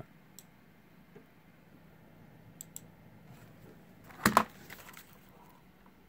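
Quiet room tone with a faint low hum, a few small clicks, and a brief loud clatter of sharp knocks about four seconds in.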